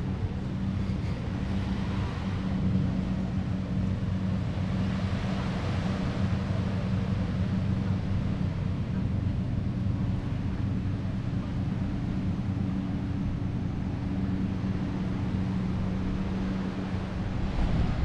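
A boat engine running steadily at an unchanging pitch, with surf washing in and wind buffeting the microphone.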